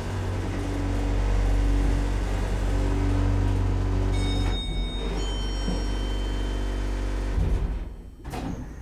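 Hydraulic elevator car travelling up: a steady low hum from the hydraulic power unit, with a few high tones briefly midway. About seven and a half seconds in there is a thump as the car comes to a stop, and the hum cuts off.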